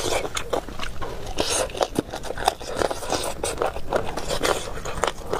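Close-miked eating: chewing and biting, with many short, irregular mouth clicks and smacks.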